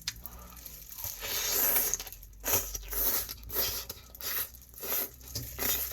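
A person chewing a mouthful of spicy seasoned mitre squid and raw vegetables (hoe-muchim), with crunchy bites repeating about twice a second.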